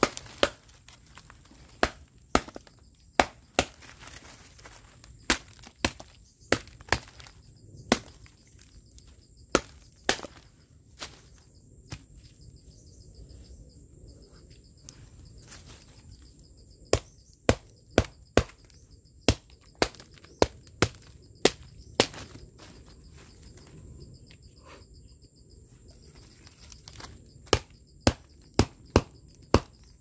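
A knife being batoned down through an upright stick of wood, its spine struck with a wooden baton to split it: sharp wooden knocks at irregular spacing, coming in runs with pauses of a few seconds between them.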